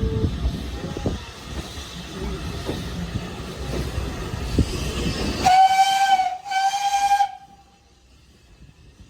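Steam locomotive running with a low rumble and scattered knocks, then two blasts on its steam whistle a little past halfway, the second slightly shorter than the first.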